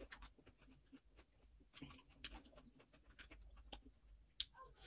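Soft chewing with many small mouth clicks, from a mouthful of steamed egg momo.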